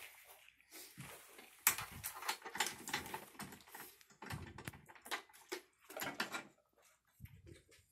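Irregular metallic clicks and light knocks as hands fit a clevis pin to join a stop arm's air cylinder to its bracket, handling small steel hardware.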